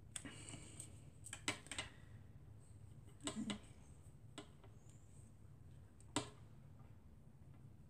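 Scattered faint clicks and taps from a small plastic squeeze bottle being dabbed onto a paper card, a few in quick succession about a second and a half in, more around three seconds in, and one near the end, over a low steady hum.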